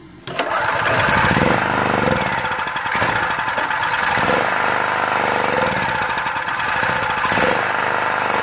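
Small generator engine cutting in abruptly and running steadily with a fast, even firing rhythm. It is running on Aerostart starting fluid sprayed into the cylinder, with no fuel in it.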